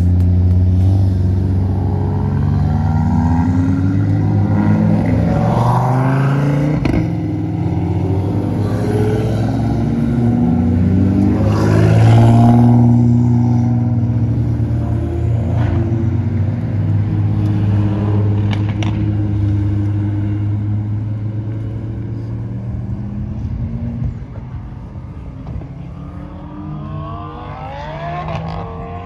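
Toyota Supra accelerating hard up a hill road, its engine pitch climbing and dropping back at each of several upshifts, then fading as it pulls away.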